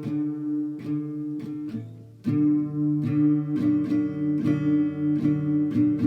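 Instrumental music: a run of plucked notes over sustained low tones. It fades briefly about two seconds in, then comes back in.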